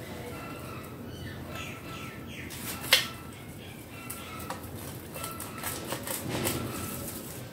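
Hands working at a potted orchid: scattered rustles and small clicks, with one sharp click about three seconds in. Birds chirp faintly in the background.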